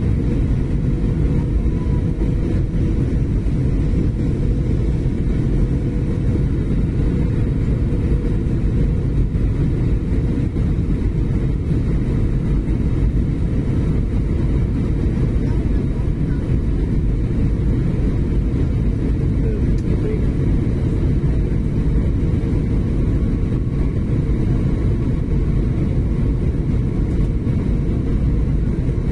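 Steady low rumble of a passenger airliner's engines and rushing air, heard inside the cabin in flight.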